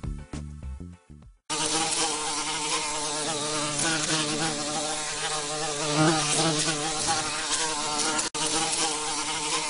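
Background music ends about a second in, and a steady buzzing bee sound effect takes over, its pitch wavering slightly, dropping out for an instant near the end.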